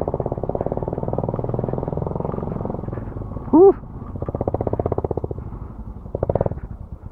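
Motorcycle engines running at low road speed, the exhaust beating in a rapid, even pulse. About halfway through, a rider gives one short vocal exclamation.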